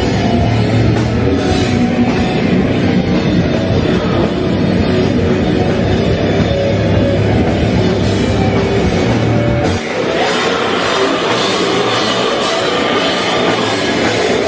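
Nu metal band playing, with distorted electric guitar, bass guitar and drum kit. About ten seconds in, the heavy low end drops out and the sound turns thinner and brighter.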